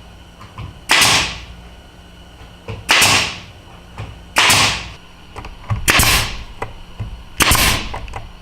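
Brad nailer firing 5/8 inch brads into plywood, five sharp shots about one and a half seconds apart, each trailing off in a short hiss, with small knocks between them.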